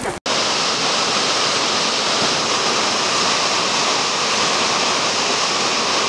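Brown floodwater rushing and churning over a river weir, a river in spate from typhoon rain; a loud, steady rush of water that starts abruptly a moment in.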